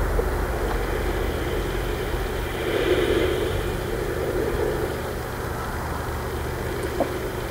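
Steady street noise from traffic, a low rumble that swells briefly about three seconds in.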